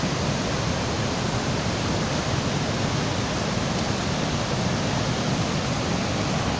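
Small waterfall's water rushing steadily, an even hiss close to the microphone.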